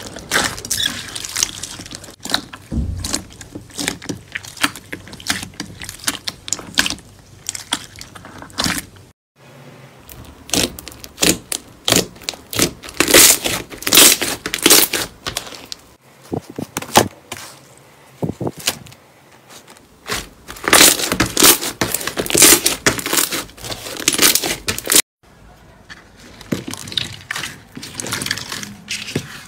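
Slime squeezed and pressed by hand: dense runs of sticky crackles and pops, in several clips cut together.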